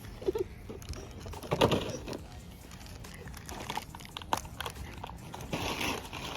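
Irregular crinkling, clicks and taps of small plastic toy packaging being handled and opened, with a louder crinkle about one and a half seconds in and another near the end.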